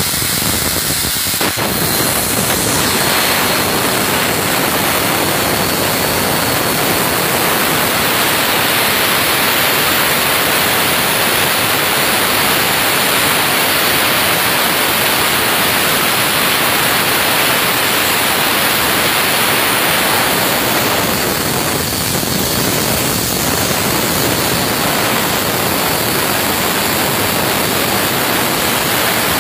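CNC plasma torch cutting through 30 mm steel plate: a loud, steady rushing hiss of the arc and its air jet. The hiss fills out about a second and a half in, then holds even through the cut.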